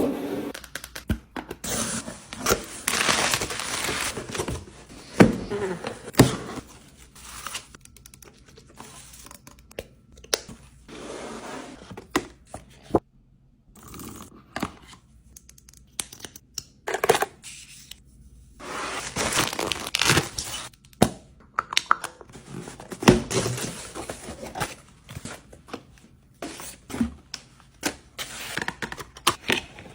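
Packaging being torn open by hand: two long ripping stretches, with crinkling and small knocks and clicks between them.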